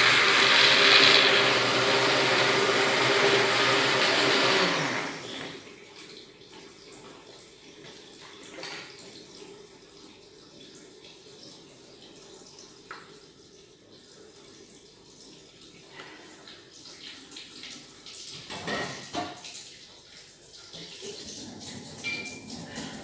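Electric blender running full of chopped tomatoes, a dense churning whir with a steady hum, switched off about five seconds in so the motor winds down. After that, only faint scattered knocks and clinks as the jug is handled.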